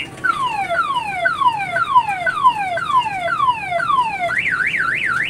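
Electronic multi-tone siren of the kind used in car alarms, sounding from a children's kiddie train ride: a run of falling sweeps about twice a second, then from about four seconds in a fast up-and-down warble.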